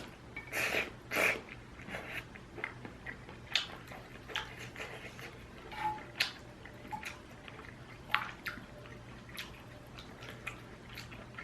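Close-miked eating of ramyun: two short louder mouth noises within the first second and a half, then quiet chewing with scattered small wet clicks.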